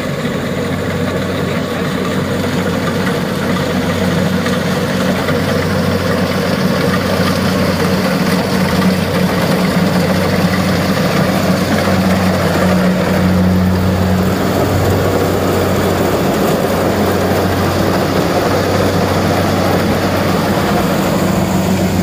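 Kubota rice combine harvester's diesel engine running steadily under load as it cuts and threshes rice, with a steady deep drone. It grows louder over the first several seconds as the machine comes closer.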